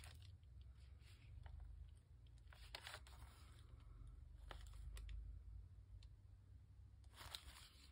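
Faint rustling and handling of paper and card as journal pages and a tag are moved about, a few brief rustles over a low steady hum.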